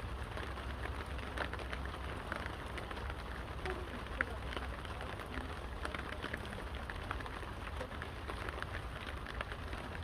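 Steady rain falling, with scattered sharp crackles and pops from firewood burning in a brick fire pit.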